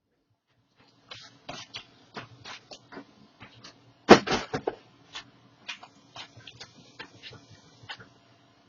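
Irregular light plastic clicks and taps from a DYMO LabelManager 160 label maker being handled, with a louder cluster of knocks about four seconds in.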